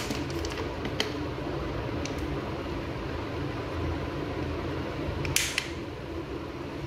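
Light clicks of small plastic folding-door lock parts being handled and fitted together on a stone countertop: one near the start, one about a second in, and a louder short clatter about five and a half seconds in, over a steady low fan-like hum.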